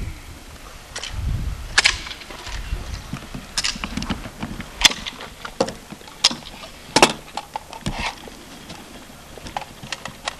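Rifle shots from Kalashnikov-pattern rifles, fired one at a time by several prone shooters along the firing line. About ten sharp cracks come at uneven intervals, some close together and some a second or more apart.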